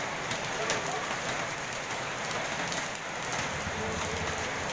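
Steady rain falling on roofs and pavement, with single drops ticking now and then.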